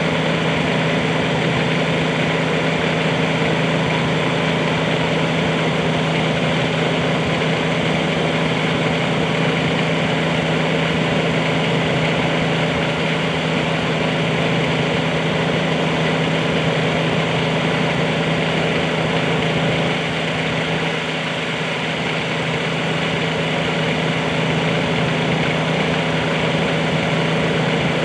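A mini excavator's diesel engine running steadily, with a slight drop in level about twenty seconds in.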